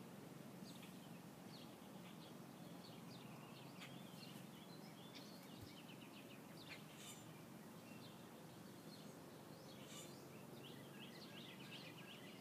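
Near silence: a faint steady background hum with scattered small bird chirps.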